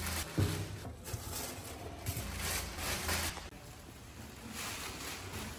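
Black plastic garbage bag rustling and crinkling in repeated bursts as it is grabbed and carried, busiest in the first half, over a faint low steady hum.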